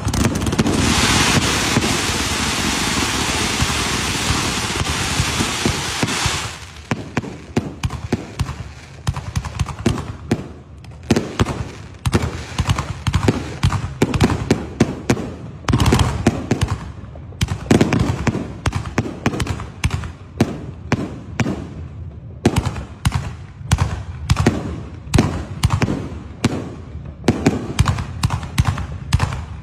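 Fireworks: a ground fountain hissing loudly for about the first six seconds, then a long, irregular series of sharp bangs and cracks, several a second, as aerial shells and cakes go off and burst.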